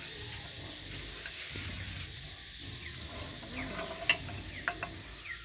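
Light clinks and scrapes of tableware, a spoon in ceramic bowls and a cat's steel bowl on a table, with a sharp click about four seconds in and a few quick ticks after it.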